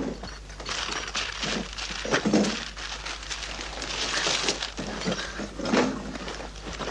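Irregular clattering and knocking of objects being banged about, with a few louder crashes of things breaking.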